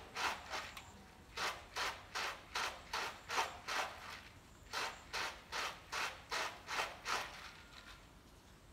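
Short rasping strokes, about two or three a second in three runs, from a hand working feed in a plastic tub.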